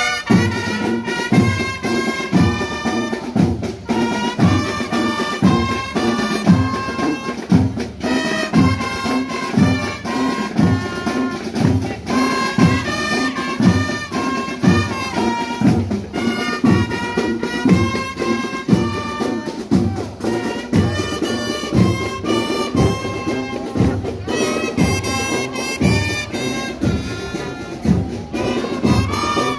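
Fanfarra marching band playing: a brass section carrying the melody over a steady bass drum beat, about one and a half beats a second. The band comes in all at once at the start.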